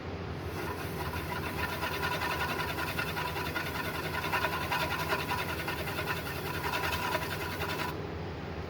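Wood lathe running with a turning tool held against the spinning yellow cedar and walnut bowl blank, a steady scraping cut over the motor's hum. The cutting starts just after the beginning and stops about eight seconds in, leaving the lathe running.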